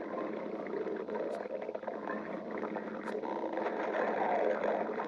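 Human stomach growling: a continuous run of wavering gurgles and rumbles, growing louder from about three and a half seconds in, with a couple of faint clicks.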